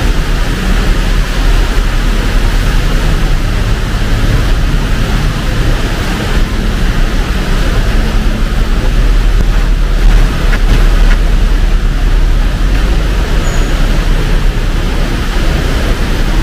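Heavy rain pouring steadily, mixed with the continuous rumble of rush-hour road traffic.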